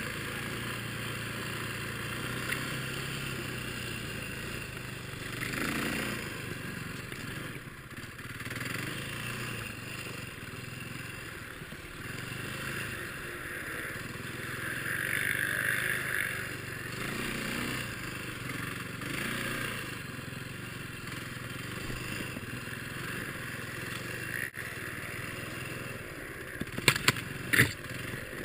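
Single-cylinder four-stroke dirt bike fitted with a Timbersled snow-bike track kit, running through snow, its engine revving up and easing off in surges. A few sharp knocks near the end.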